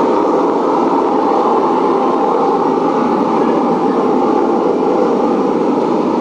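Steady, unbroken running drone of a vehicle engine, used as a travel sound effect for a departure.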